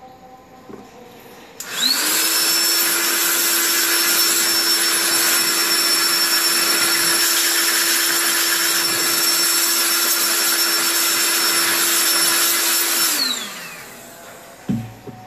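Handheld electric air blower spinning up, blowing air steadily over a graphics card while it is cleaned and dried, then winding down as it is switched off. A single thump follows near the end.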